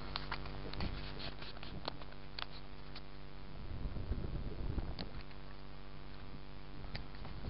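Boat engine running steadily at idle, with scattered sharp clicks and a louder rush of noise about four seconds in.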